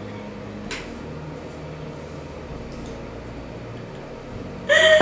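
Steady low room hum with a faint click about a second in, then a woman bursts into laughter near the end.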